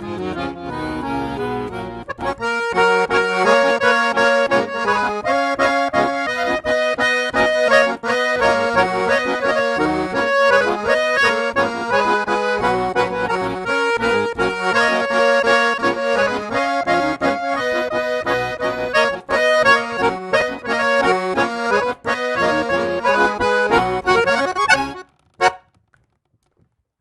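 Monarch accordion playing a gaúcho bugio, the bellows and bass side growling in the rhythm's typical 'ronco'. The playing is lighter for the first two seconds, then full, and stops abruptly a couple of seconds before the end.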